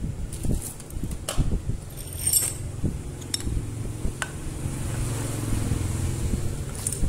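A hand drill's aluminium gear housing being knocked against a workbench to drive out its head ball bearing: several sharp, irregular knocks with metallic clinks over the first four seconds or so. A steady low hum builds in the background in the second half.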